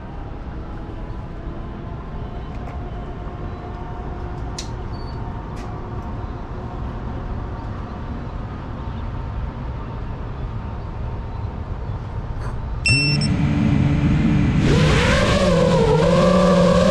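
Steady outdoor background noise, then about thirteen seconds in the FPV quadcopter's motors start spinning with a steady hum. Soon after they throttle up into a loud whine that wavers in pitch as the drone lifts off.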